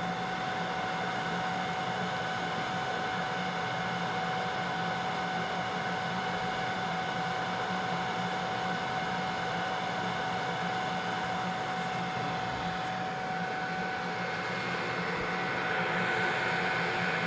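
BGA rework machine running steadily while it heats a circuit board, a whooshing fan-type hum with a steady whine over it, getting a little louder near the end.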